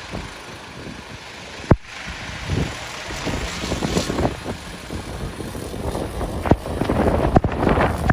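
Strong gusty wind buffeting the microphone, rising and falling and heavier in the second half, with a few sharp knocks.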